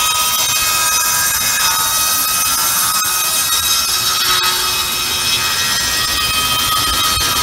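Large circular saw blade of a Victorian Charles Powis saw bench, belt-driven from a steam traction engine, ripping a long plank pushed through by its roller feed. It gives a loud, steady, high-pitched whine with several held tones over a hiss.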